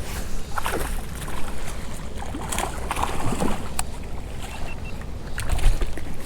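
Water splashing and scattered small knocks around a fishing kayak while a hooked bass is fought to the boat, over a low wind rumble on the microphone.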